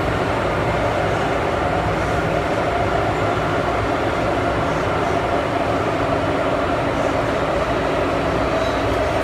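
MTR Tsuen Wan Line M-Train heard from inside a passenger car while running: a steady, even running noise from wheels and traction gear, with a steady hum through it.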